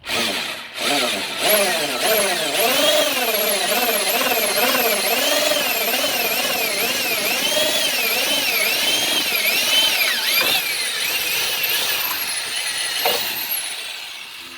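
Power drill boring holes into the bumper of a 2002 Dodge Ram 1500 to mount light bar brackets. The motor's whine rises and falls in pitch again and again, then dies away near the end.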